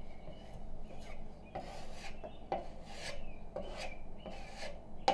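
Putty knife scraping over fresh spackle on drywall in a quick series of short strokes, pressing the filler into a small hole and smoothing it flush from different angles.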